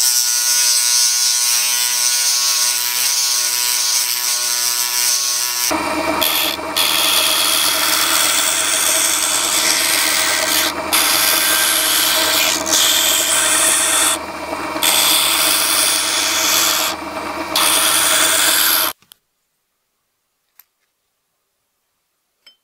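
A rotary tool whines steadily as a small washer spun on its mandrel is sanded against abrasive paper. About six seconds in it gives way to a power sander, with a washer held against the spinning abrasive and the sanding noise briefly easing a few times. The sander cuts off about nineteen seconds in, and afterwards only a couple of faint clicks are heard.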